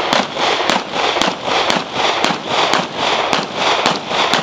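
A steady string of pistol shots fired in quick succession, about two a second, each sharp crack trailed by a brief echo.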